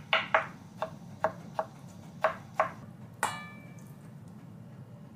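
Kitchen knife chopping black olives on a plastic cutting board: about seven quick, uneven chops over the first three seconds. Just past three seconds comes a single clink that rings briefly.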